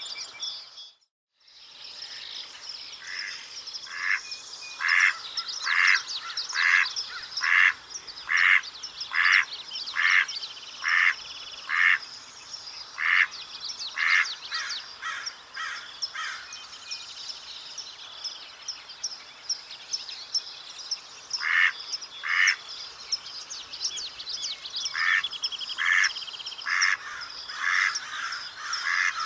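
Mallard quacking: a long run of evenly spaced quacks at about one a second, rising and then falling in loudness. After a pause come two more, then another run near the end. Other birds chirp faintly behind, and the sound drops out briefly about a second in.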